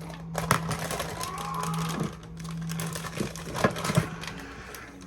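Kitchen handling noises: scattered light knocks and some crinkling, over a steady low hum.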